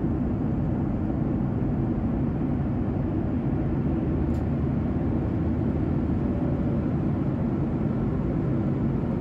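Steady, even low rumble of a moving vehicle.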